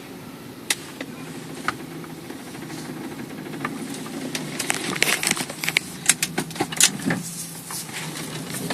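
Mk4 Volkswagen Jetta while driving: a steady low hum, with scattered clicks and rattles that come thicker and louder in the second half. The owner reports the hum stops when the brakes are applied and persists despite a new caliper.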